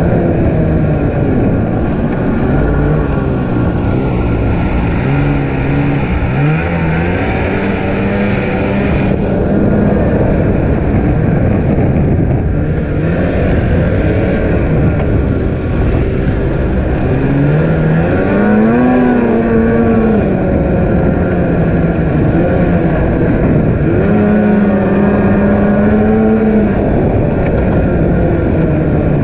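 Snowmobile engine running while the sled is ridden, its pitch repeatedly rising and falling as the throttle is opened and eased off.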